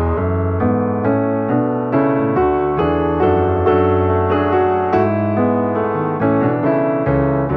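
Piano music: notes and chords struck about twice a second over held low bass notes.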